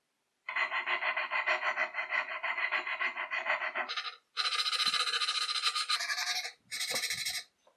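A needle file rasping back and forth in quick, even strokes against scroll-sawn pine fretwork, smoothing the cut edges. It comes in three stretches with short pauses just before halfway and again near the end.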